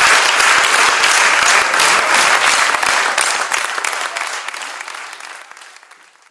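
Audience applauding, the clapping dying away over the last two seconds or so.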